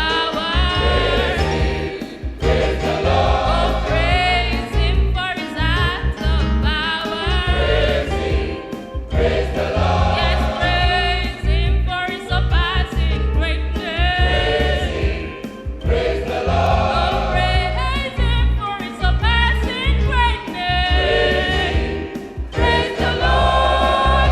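A choir singing a gospel praise song in several voice parts over a band with a strong bass.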